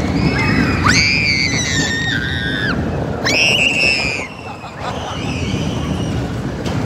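Riders screaming on an amusement-park train ride: two long, high-pitched screams, then a fainter one, over the steady rumble of the moving ride.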